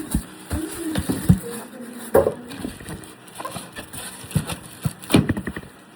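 Hands handling and unpacking items from a box: irregular knocks, taps and scrapes, with a few brief squeaks near the start.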